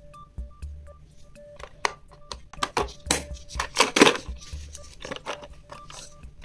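Background music, with a run of sharp plastic clicks and knocks from a hard plastic pencil box being closed and handled, the loudest about four seconds in.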